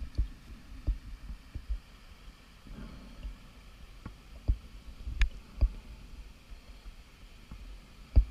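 Irregular muffled knocks and clicks, a dozen or so over several seconds, picked up underwater through a GoPro's waterproof housing on a scuba dive, over a low steady rumble.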